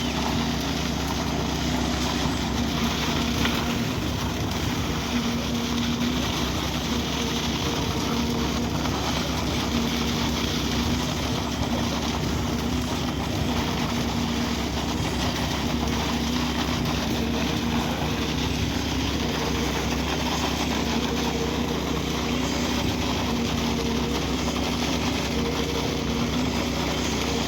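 Construction machinery engine running steadily at a constant pitch, a continuous mechanical drone.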